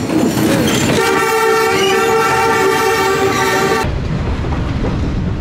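Train horn sounding one long blast of a little under three seconds, about a second in, as the train approaches. When it stops, a heavy low rumble carries on.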